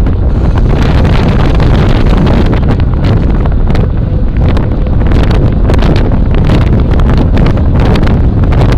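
Loud, steady wind rumble buffeting a bicycle-mounted camera's microphone as the bike rides along.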